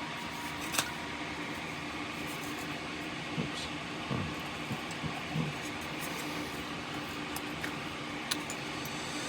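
Steady hum of the room with a few light clicks and taps from small parts being handled at the workbench; the sharpest click comes about a second in.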